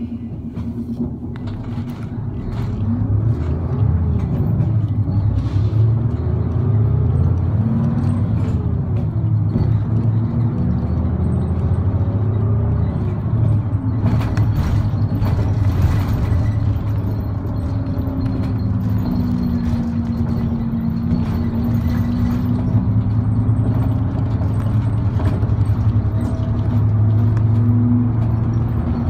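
Route bus engine and road rumble heard from inside the cabin. The engine note climbs and drops back about three times as the bus gathers speed through its gears, then holds steady, with a few short rattles.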